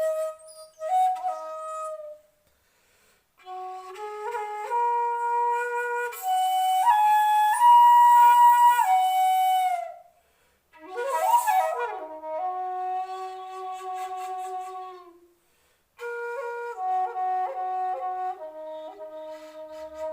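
Homemade D-sharp shakuhachi, an end-blown flute with a horn mouthpiece, played in slow phrases of long held notes that step between pitches, breathy on the loudest, highest notes. There is a quick swooping pitch bend about halfway through, and short breaks between phrases.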